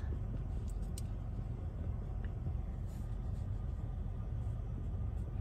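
Steady low rumble of a car's cabin, with a few faint light taps in it.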